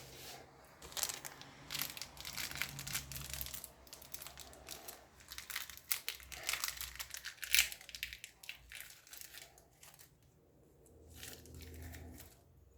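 Packaging crinkling and rustling as it is handled and pulled apart, in uneven spells, dying away about ten seconds in with a short last rustle near the end.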